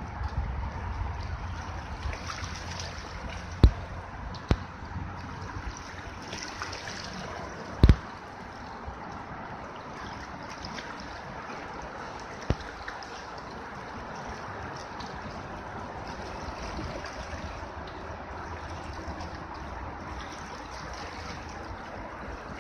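Small river waves lapping and splashing against shoreline rocks, a steady watery wash, broken by a few sharp knocks, the loudest about eight seconds in.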